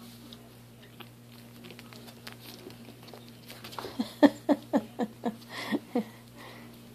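Shih Tzu puppy giving a quick series of about eight short yips, each falling in pitch, starting about four seconds in. Before that, faint light ticks and scuffles of puppies moving and mouthing.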